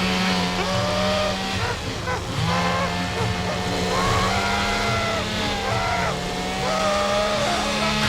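A motor vehicle's engine running hard, its note cutting out briefly and coming back, with high wavering squeals over it.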